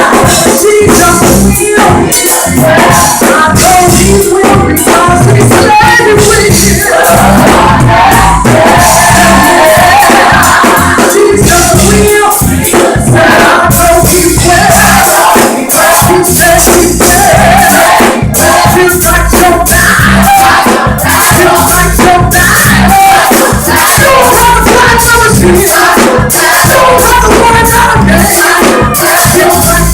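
Live gospel music played loudly: a vocal group singing over a full band with heavy bass and a driving beat.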